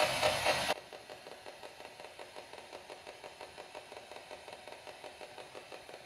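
Radio static from a spirit box sweeping through stations: loud hiss that cuts off abruptly under a second in, then faint, even choppy pulses of static about five times a second.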